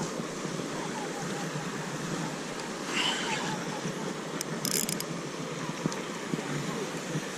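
Steady wind noise on the microphone, with a short burst of fishing-reel drag a little past halfway through as a hooked fish takes line.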